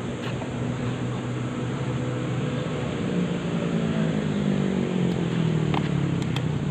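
A passing motor vehicle's engine, its pitch falling slowly over the later seconds, over a steady hiss of traffic-like background noise.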